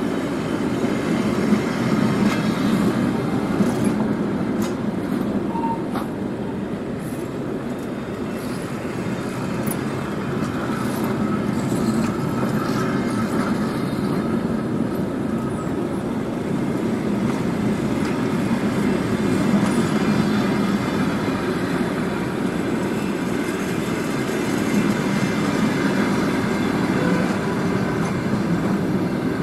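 Passenger train coaches rolling past close by: a steady rumble of wheels on rail, with scattered sharp clicks in the first third.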